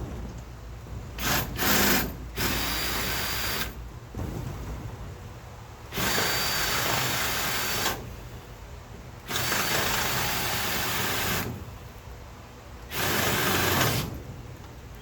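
Handheld power tool run in five short bursts of one to two seconds each, with quieter pauses between them.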